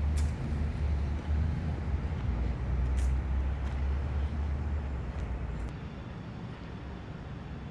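Dodge Challenger SRT8's 6.1-litre Hemi V8 running at idle, a steady low rumble that stops about six seconds in. A few short clicks sound over it.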